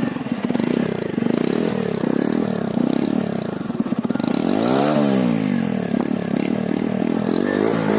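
TVS Radeon's 110 cc air-cooled single-cylinder engine running with quick, even firing pulses and being revved a few times. The largest rev, about five seconds in, climbs and falls back to idle. The owner likens the exhaust note to a Royal Enfield Bullet's.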